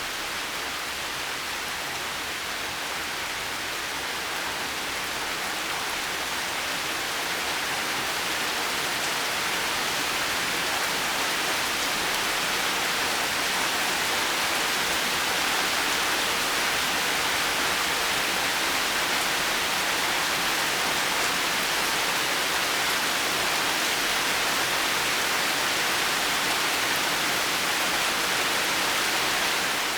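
Steady heavy rain falling, an even hiss with no thunder, slowly growing louder over the first half.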